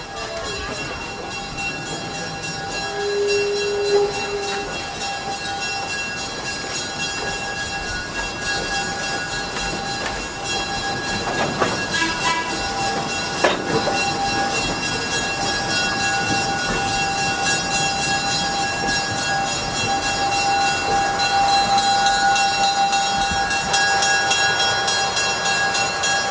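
Diesel-hauled museum train, a GE 65-ton switcher with a passenger coach, running on the track. A steady rumble carries several held high-pitched tones, with a short lower tone a few seconds in and two sharp clanks about halfway through.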